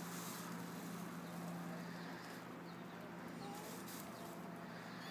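Quiet background noise with a steady low hum.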